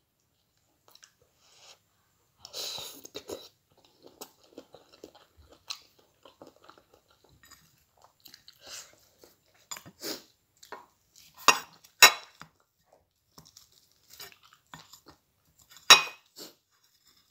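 Close-up eating of spicy seafood noodles: chewing and other mouth sounds, with a few sharp clicks of wooden chopsticks against a ceramic bowl, the loudest a pair of clicks just before the middle and one near the end.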